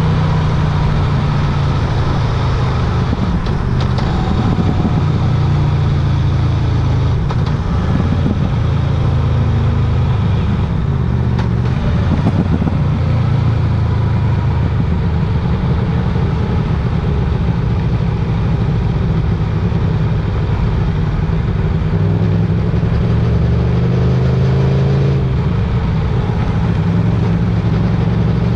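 Motorcycle engine running steadily at a low, even pitch, with small rises and dips in speed.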